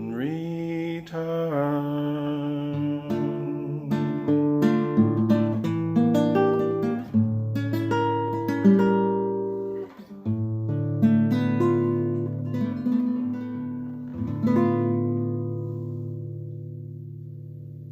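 Acoustic guitar playing the closing bars of a slow song, picked notes and chords, ending on a last chord that rings out and slowly fades.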